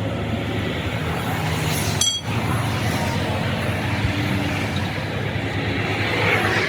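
A motor vehicle engine running steadily with a low hum, broken briefly about two seconds in.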